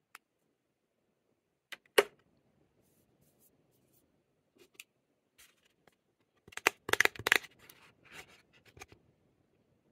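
Lip balm packaging being handled and unwrapped: scattered small clicks and taps, one sharp click about two seconds in, and a quick run of clicks and rustling around seven seconds in.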